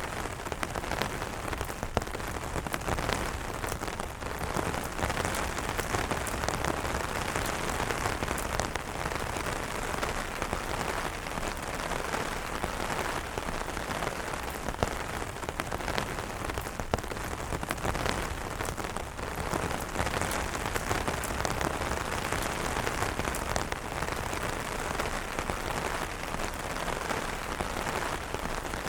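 Steady rain falling on umbrellas, a dense even hiss dotted with many sharp individual drop hits.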